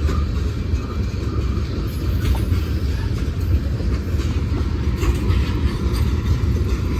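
Freight train rolling past: a steady rumble of wheels on rail, with a few faint clicks.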